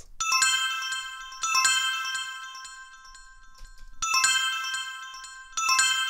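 Synthesized bell-tone notification chime: a cluster of bright bell notes is struck, then a second cluster about a second later, each ringing out and fading. The two-strike phrase repeats about four seconds in.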